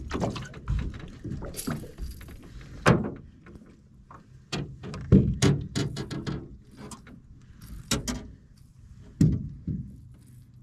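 Irregular knocks and thumps on an aluminum fishing boat as a landing net holding a freshly caught fish is swung aboard and set down on the deck, with the fish flopping in the net. About a dozen sharp hits, the loudest about three, five, eight and nine seconds in.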